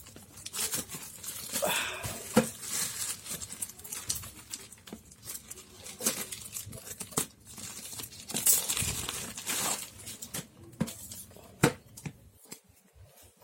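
Parcel packaging being torn open and crinkled, irregular rustling and tearing broken by sharp clicks and taps as the package is handled.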